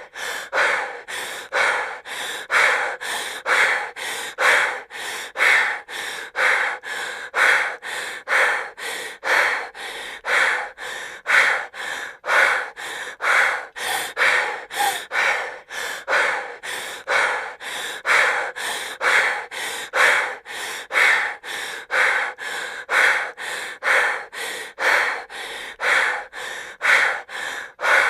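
A woman breathing heavily and fast. Quick, even in- and out-breaths, about two a second, follow one another without a pause.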